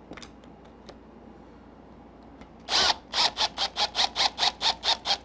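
Milwaukee cordless drill-driver driving a screw into an RC truck's rear wing mount. After a couple of seconds of faint handling ticks it runs briefly, then goes on in a rapid train of short pulses, about five or six a second.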